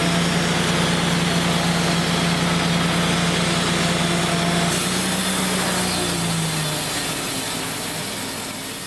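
Wood-Mizer LT35 band sawmill running under load, its blade cutting through a black walnut log. About halfway through, the note shifts and a high whine comes in, then the machine sound slowly fades near the end as the cut finishes.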